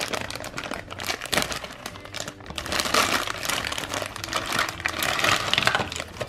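Clear plastic packaging bags crinkling and crackling as hands handle and unwrap them.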